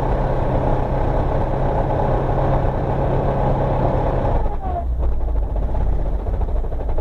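A 1985 Ford Belina driving on a broken gearbox: the engine revs and the failed transmission makes a loud grinding din. About four and a half seconds in, the revs drop and the noise falls to a lower hum.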